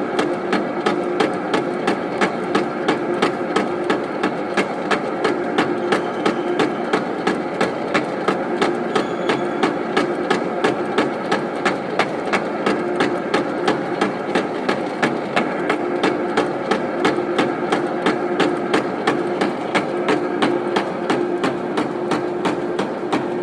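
Lathe running slowly in back gear while drilling: a steady machine hum with a regular knock about three times a second.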